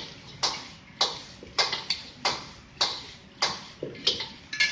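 A metal wok ladle clacking and scraping against a wok while stir-frying, about two sharp strikes a second, mixing spiced salt through the food.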